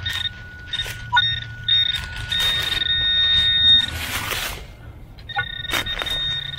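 Handheld metal-detecting pinpointer probe beeping: short on-off beeps, then a held tone twice as it is brought over a buried coin in the dug hole, with rustling and scraping of dirt and dry leaves.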